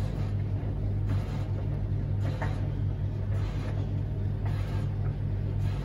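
A steady low hum, with a few faint handling rustles of a small metal gear puller and pinion.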